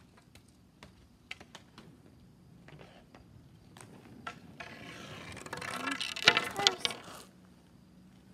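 Inline skate wheels rolling on a concrete driveway, getting louder as the skater comes up close, with scattered light clicks beforehand and a sharp clack at the loudest point, about six seconds in.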